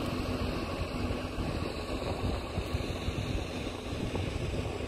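Wind buffeting a phone's microphone outdoors: a steady low rumble, with a faint steady hum underneath.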